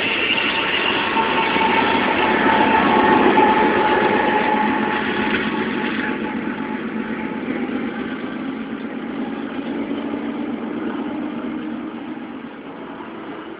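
Coal hopper cars rolling along the rails, followed by a BNSF diesel locomotive at the end of the train running as it passes. The sound is loudest about three seconds in and then fades steadily as the train moves away.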